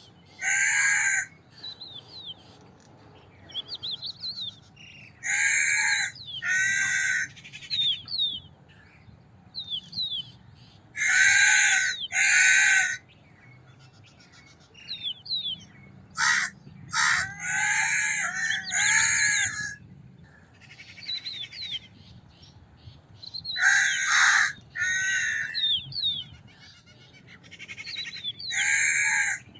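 Crows cawing: loud, harsh caws, mostly in pairs, with a quick run of several in a row about two thirds of the way through. Small birds chirp faintly between the caws.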